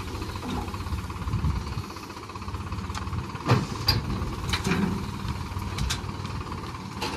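Mahindra tractor's diesel engine running steadily while its hydraulic tipping trolley is raised, dumping a load of wet compost off the back. A few sharp knocks come about halfway through.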